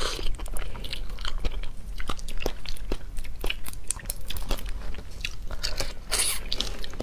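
Prawn shells crackling and clicking as they are peeled off by hand and bitten, with chewing, in a dense run of small clicks and a longer crunch about six seconds in.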